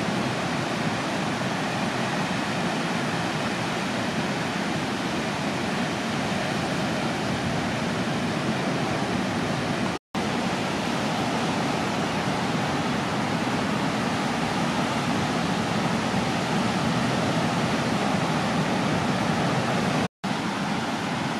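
Steady, even roar of ocean surf breaking and washing, cutting out for an instant twice, about halfway and again near the end.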